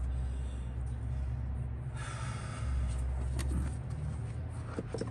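Old pleated engine air filter being lifted out of its plastic airbox: a rustle and light scraping of the filter frame against the housing, loudest for over a second from about two seconds in, with a few sharp plastic ticks. A steady low rumble of wind on the microphone lies underneath.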